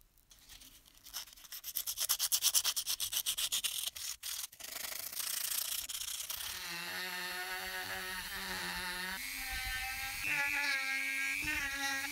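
Abrasive paper rubbed by hand over a small metal part in quick back-and-forth strokes. About halfway through, a small handheld rotary tool starts up with a steady whine as it polishes a small part, its pitch shifting twice.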